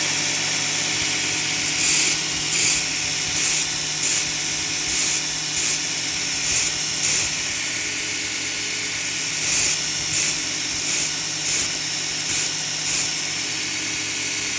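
Surface grinder running, its wheel grinding a forged piece of coil-spring steel flat, with louder surges of grinding about once a second as the work passes under the wheel.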